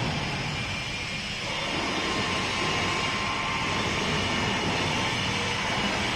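Steady industrial machinery noise from a billet heating furnace and rolling line workshop, a continuous mechanical din with faint steady tones over it.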